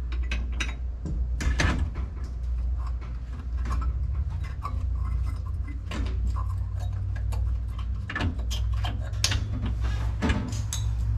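Irregular clicks, clinks and knocks of tools and metal parts being handled during work on a truck, over a steady low hum.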